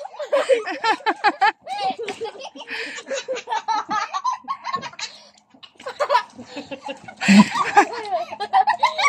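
Children laughing and giggling in quick repeated bursts, with a short pause about halfway through.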